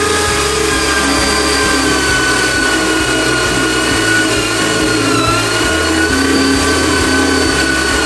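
Handheld electric drill running continuously with a steady whine, its pitch sagging briefly about five seconds in as the bit takes load in the wood.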